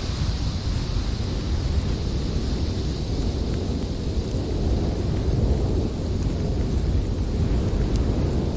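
Strong blizzard wind blowing steadily as a deep rumble, with a higher hiss that fades over the first few seconds.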